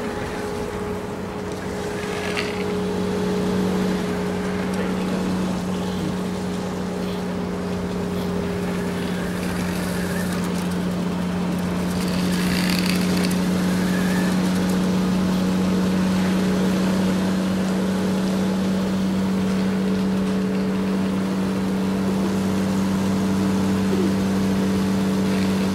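Steady hum of the small electric motor of a cardboard RC toy tractor driving, holding one even pitch, with brief noisier rustles twice, about two seconds in and near the middle.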